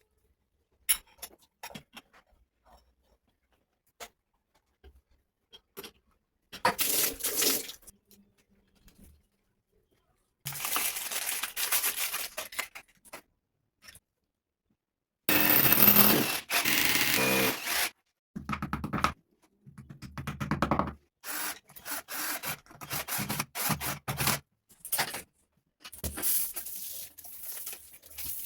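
Hand work on plumbing fittings: scraping, rubbing and clicking of tools and parts, in irregular bursts a second or two long with quiet gaps between.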